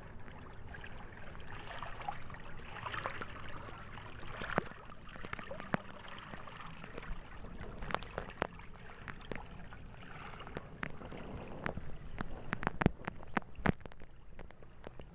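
Water sloshing and splashing around a person wading through the creek while guiding a small boat along by its bow. Sharp clicks and knocks come throughout, more often in the second half.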